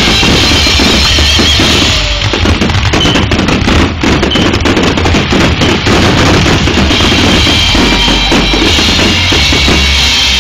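Fireworks bursting in a dense barrage, many reports a second overlapping into a continuous rumble and crackle. It is loud enough to push a mobile phone's microphone close to overload.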